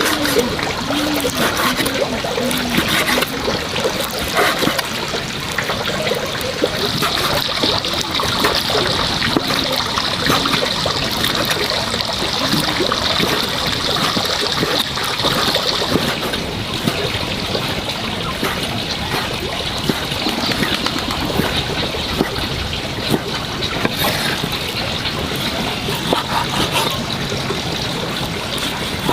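Water running and trickling steadily, with some splashing.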